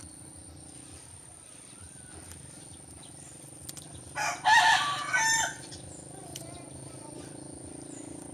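A rooster crowing once, a single call about a second and a half long, about four seconds in, over a faint steady high-pitched whine.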